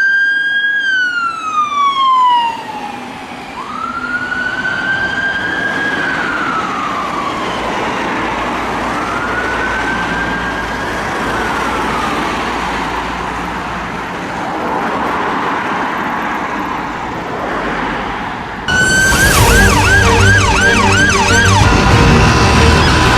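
Emergency vehicle siren on a slow wail, rising and falling about every three seconds and fading as the vehicle moves away. About nineteen seconds in, a louder siren on a fast yelp takes over suddenly.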